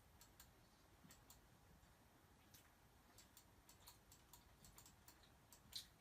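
Near silence with faint, irregular small clicks, about a dozen, scattered at uneven intervals; one slightly louder click comes near the end.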